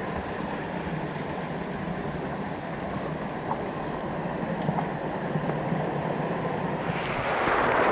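Steady rush of flowing creek water, growing louder and hissier about seven seconds in.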